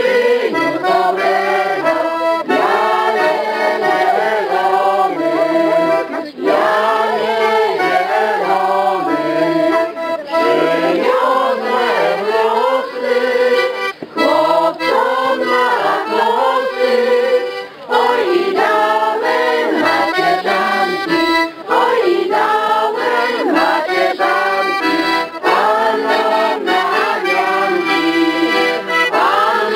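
Hohner piano accordion playing a folk tune, with voices singing along.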